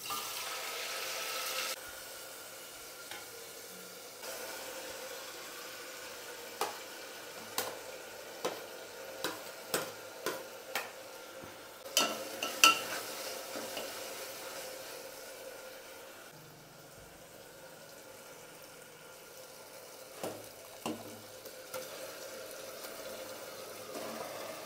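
Sliced tomatoes and green chillies hit hot oil and fried onions in a pot with a loud sizzle, which settles after a second or two into a steady frying sizzle. A metal spoon stirring the mixture clicks and scrapes against the pot again and again, most sharply around the middle.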